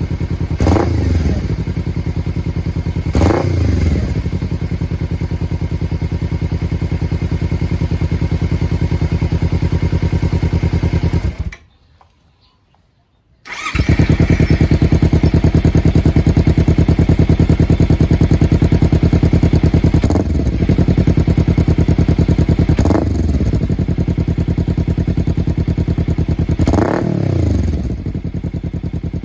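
Kawasaki Ninja 300's parallel-twin engine idling through an aftermarket Akrapovic exhaust canister, blipped five times with quick revs that rise and fall straight back to idle. The sound drops out for about two seconds near the middle, then the engine is idling again.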